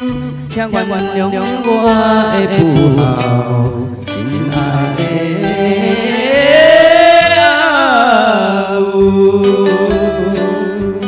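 Music: a Taiwanese song whose lead melody glides up and down with vibrato over a steady accompaniment, with a long rising and falling phrase in the middle.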